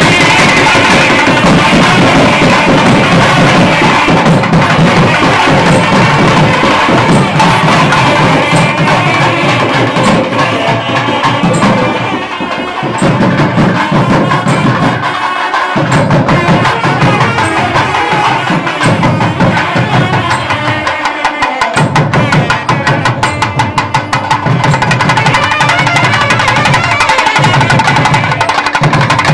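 Several thavil barrel drums played together, a fast, loud and continuous drumming with a few short breaks in the middle.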